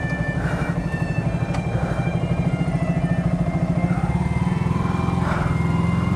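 Yamaha R15 V3's 155 cc single-cylinder engine running at low revs as the motorcycle rolls off slowly, with a gentle rise in engine speed about four seconds in.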